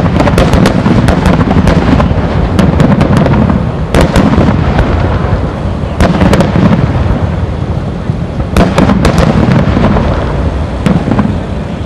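Aerial fireworks shells bursting in quick succession: sharp bangs over a continuous low, echoing rumble, with a dense cluster of reports about nine seconds in.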